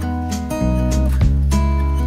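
Background music led by acoustic guitar, with chords changing about every second.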